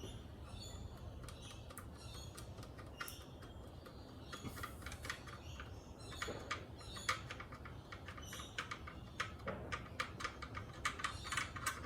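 Light, irregular metallic clicks of a hand ratchet and socket backing out an intake manifold bolt on a Mercedes M271 engine. The clicks come more often in the second half, over a steady low hum.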